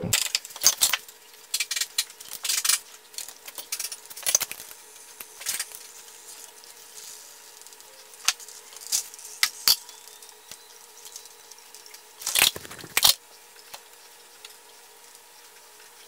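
Hand tools clinking and tapping on the metal fitting of a braided oil-cooler line as the loose, leaking fitting is worked off. Irregular sharp metallic clicks, with a quick cluster about twelve seconds in, over a faint steady hum.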